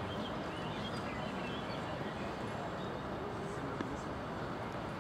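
Steady outdoor crowd noise: a murmur of distant voices with no nearby speech, and a single small click about four seconds in.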